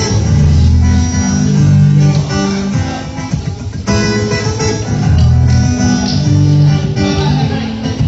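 Instrumental intro played on guitars over a low bass line, strummed and plucked, with a phrase repeating about every four seconds.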